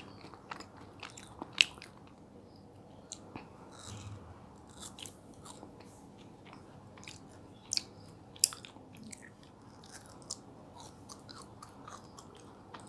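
Close-miked eating of soft fruit: quiet wet chewing and mouth clicks, with a few sharper clicks, the loudest about one and a half seconds in.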